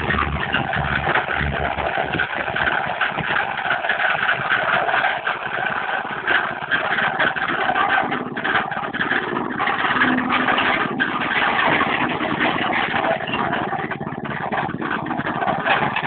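Portable drum concrete mixer running steadily, its motor droning while the turning drum rattles and clatters with wet concrete as it tips out its load.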